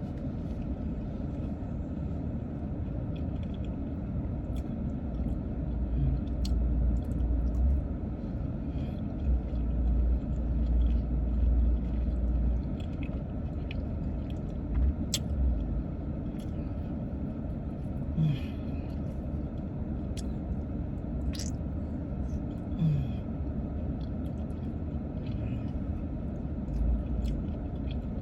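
Steady low rumble inside a car, swelling louder now and then, with a person eating over it: chewing and scattered small clicks of food and utensils.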